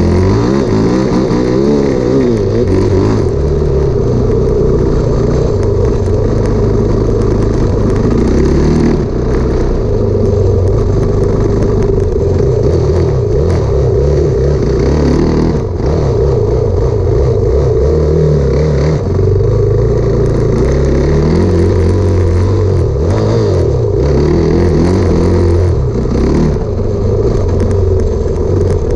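Enduro dirt bike engine running hard under throttle while riding through snow, its revs rising and falling continuously. The throttle shuts off briefly a few times.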